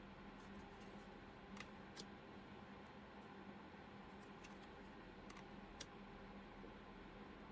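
Faint, scattered clicks and slaps of stiff, plasticky oracle cards being flipped through one at a time, over a low steady hum of room noise.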